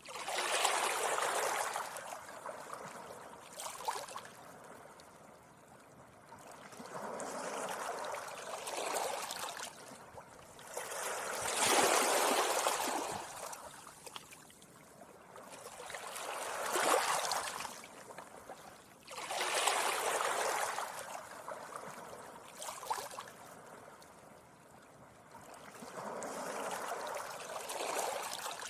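Small sea waves breaking gently on a beach and washing up the sand, each wash swelling and fading away, one every few seconds, some louder than others.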